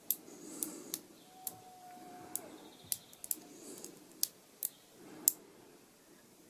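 Small neodymium magnet balls snapping onto a magnetic-ball lattice sculpture, making about ten sharp clicks at irregular intervals.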